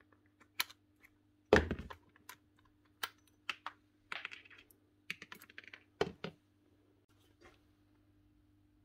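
Small metal parts of a DeWalt impact driver's quick-release bit holder clicking and rattling as they are handled on a bench, with scattered sharp clicks, a louder knock about one and a half seconds in and another about six seconds in. A faint steady hum runs underneath.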